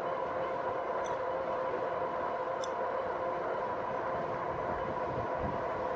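2018 RadMini fat-tyre electric bike riding at about 22 mph: a steady whine from its geared rear hub motor and knobby fat tyres over road and wind noise, with two faint ticks early on.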